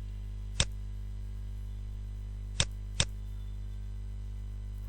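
Three sharp clicks at a computer: one about half a second in and two close together near the three-second mark. They sit over a steady mains hum.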